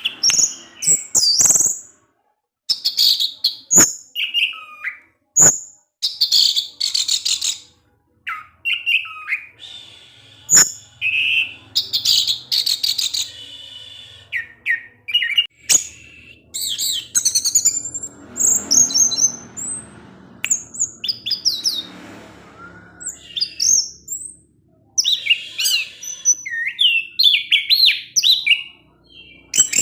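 Orange-headed thrush singing a varied, broken run of chirps, whistled phrases and quick chipping notes with short pauses between them, the 'ngecis' chattering song used as a lure to make other anis merah sing. A few sharp clicks cut in between phrases.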